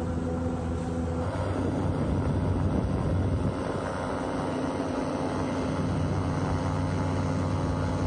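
A boat engine running steadily at speed, a steady hum that grows a little louder and rougher about a second in.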